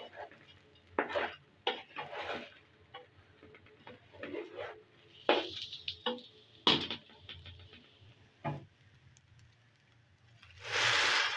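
A wooden spatula stirring and scraping raw rice and vegetables in a pot, in scattered short scrapes and knocks as the rice is fried dry. Near the end, water starts pouring into the pot in a loud rush.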